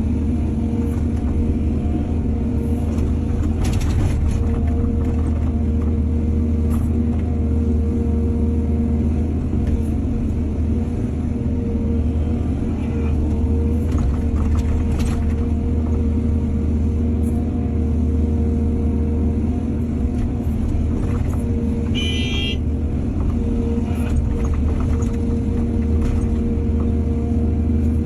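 Excavator's diesel engine running steadily in a low drone, with a few sharp knocks and clanks. A brief high-pitched tone comes in about twenty-two seconds in.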